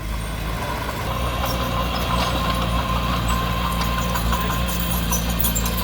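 Heavy diesel engine of earthmoving machinery running steadily, with scattered light metallic clinks over it.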